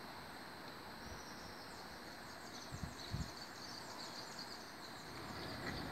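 Outdoor ambience: a faint steady hiss with rapid high-pitched chirping from about a second in, and two brief low bumps near the middle.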